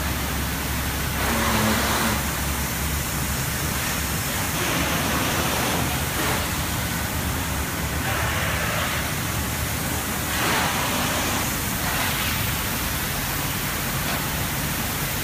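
Steady rushing noise of large ventilation fans running, with brief swells of hiss every few seconds.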